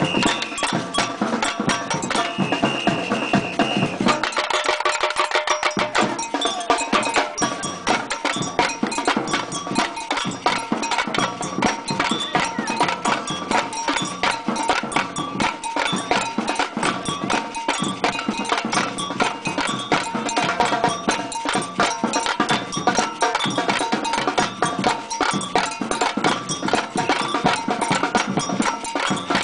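Batucada samba percussion band playing a fast samba rhythm, with bells ringing clearly on top of the drums. The deep drums drop out for about two seconds around four seconds in, then come back.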